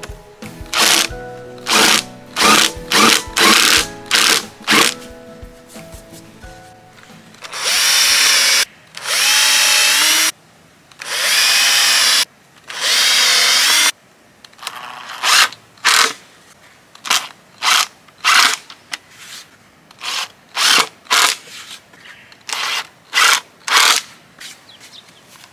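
Cordless drill drivers driving screws into wooden boards. First comes a run of short whirrs, then four longer whirrs of about a second and a half each with a wavering pitch, then another quick run of short whirrs.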